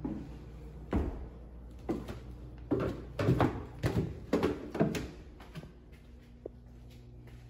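Footsteps on a hard floor: a run of short thumps about two a second that die away after about five seconds, over a steady low hum.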